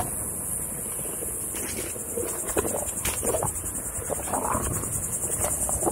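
A steady, high-pitched insect chorus over the rumble of wind on the microphone, with scattered light knocks and crackles as a Onewheel rolls over a sandy trail.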